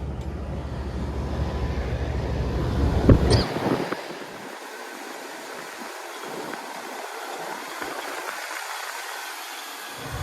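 2002 Lennox R22 rooftop HVAC unit running after its stage-one compressor was replaced: a steady low machine hum under a broad rush of air. There is a sharp clack about three seconds in, and just after it the low hum drops out abruptly, leaving only the airy hiss.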